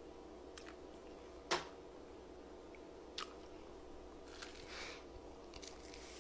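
Close-miked eating: biting and chewing pieces of honey-glazed fried chicken, with soft wet chewing noises. A sharp click comes about one and a half seconds in and a smaller one a second and a half later, over a faint steady hum.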